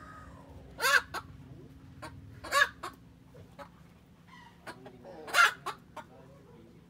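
Chickens calling: three loud, short calls about two seconds apart, each followed by a shorter second note.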